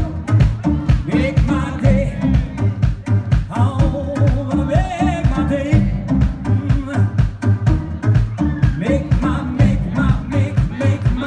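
Live rock band playing, with male vocalists singing through microphones over electric guitar and a steady drum beat.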